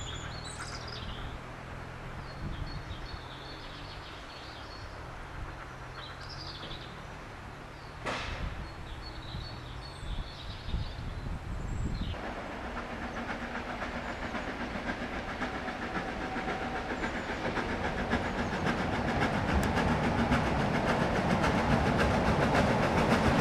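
Birds chirping over a faint low rumble, then about halfway through a narrow-gauge steam tank locomotive (Isle of Man Railway No. 12 Hutchinson) approaching with its train, a rapid clatter that grows steadily louder toward the end.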